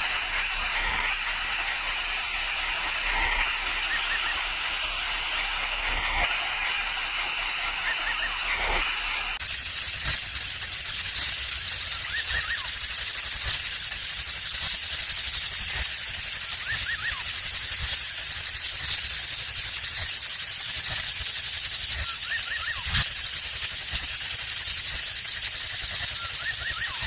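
Steady high-pitched hiss, which changes abruptly to an even higher hiss about nine seconds in. A few faint short chirps and soft knocks are scattered through it.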